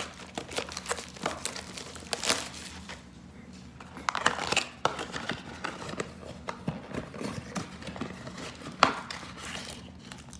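Foil-wrapped trading-card packs crinkling and rustling as they are pulled out of a small cardboard hobby box, with irregular handling clicks and scrapes.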